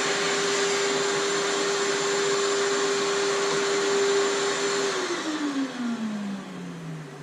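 An electric motor running with a steady whine and a rush of air. About five seconds in it is switched off, and the whine falls in pitch as it winds down.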